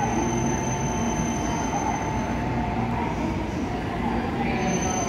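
Steady hum and drone of a stationary N700A Shinkansen standing at the platform, its onboard equipment running, amid station platform noise. A thin high tone drops out about halfway through and returns near the end.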